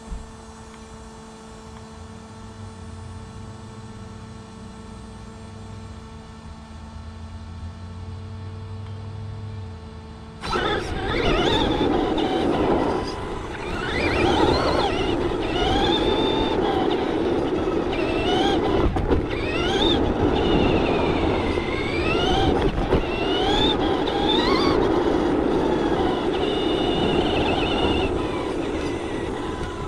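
Electric motor and drivetrain of a Traxxas Slash 2WD RC short-course truck. It hums quietly at first, then about ten seconds in breaks into a loud whine that rises and falls in pitch with the throttle, over tyre rumble on the asphalt.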